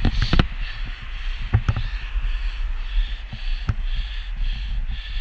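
Wind rumbling on a cyclist's helmet-camera microphone, with a steady hiss of tyres on wet tarmac. A few sharp knocks break through, the loudest about 1.5 s and 3.5 s in.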